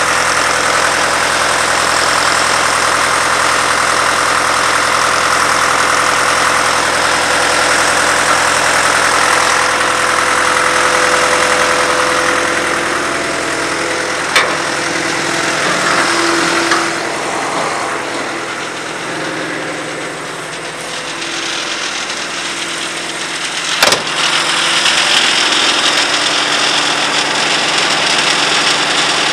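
The 22W cable tool drill rig's engine running steadily at idle, with two sharp knocks about ten seconds apart.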